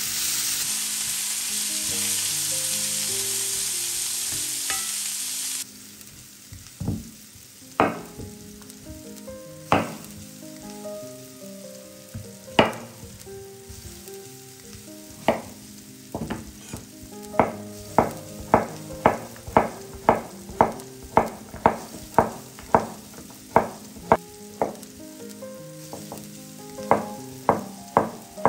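Vegetables sizzling in oil in a frying pan, which cuts off suddenly about six seconds in. After that come sharp kitchen knocks, sparse at first and then about two a second, over soft background music.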